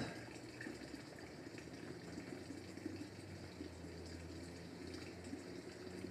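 Faint, steady background hiss with a low hum, and a brief click at the very start.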